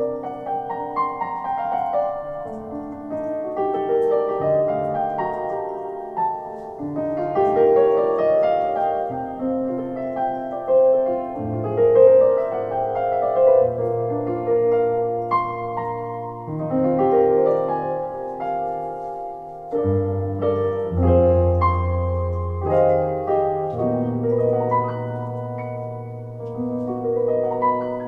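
Piano sound played live on a Nord Stage 3 stage keyboard: held, overlapping chords and melody, with deep bass notes coming in about twelve seconds in and again near twenty seconds.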